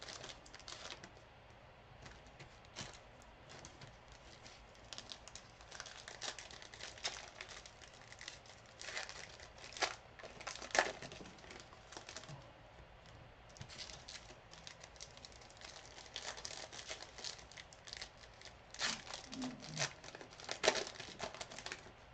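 Plastic wrapping of a sealed box of football trading cards crinkling and tearing as it is opened: irregular rustles and rips, with the sharpest rips about halfway through and near the end.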